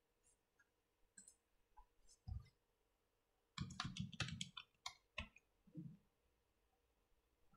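Faint keystrokes on a computer keyboard: a few scattered clicks, then a quick run of typing about three and a half seconds in, followed by a couple more single keystrokes.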